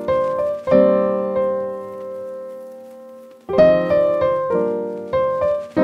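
Background piano music: chords struck and left to ring out. One chord fades slowly from about a second in until new chords come in at about three and a half seconds.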